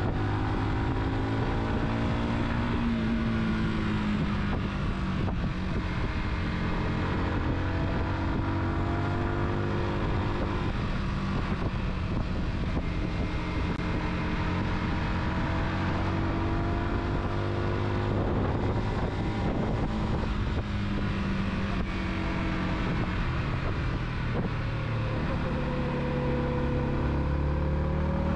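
Car engine and road noise while driving, the engine note slowly rising and falling with changes in speed.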